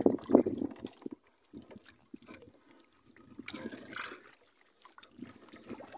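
Water splashing and trickling at the side of a small wooden outrigger fishing boat as a nylon longline is hauled in by hand, in uneven bursts: loudest in the first half second, with another burst about three and a half seconds in.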